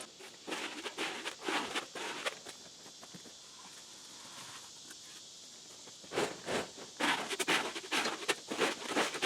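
Gritty scraping and shuffling of a trowel working wet concrete into a concrete block core, in two spells with a quieter stretch of a few seconds between.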